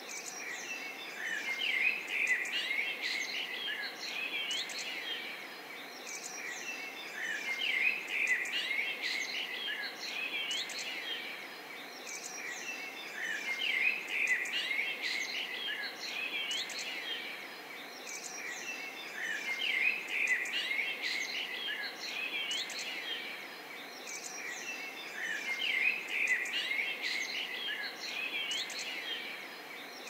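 Songbirds chirping and singing together over a steady background hiss. The chirping swells about every six seconds, as in a looped nature ambience.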